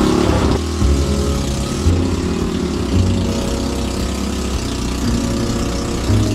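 Tricycle house rolling on the road, a steady low rumble inside its cabin with heavy rain hissing on the body and windows.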